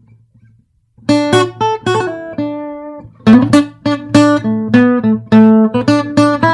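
Background music: an acoustic guitar playing plucked and strummed notes, coming in about a second in after a brief near-quiet moment.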